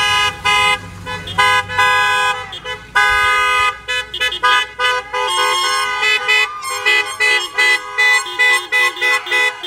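Several car horns honking at once as a line of cars drives slowly past. Long held blasts come first, then quick short toots in the second half.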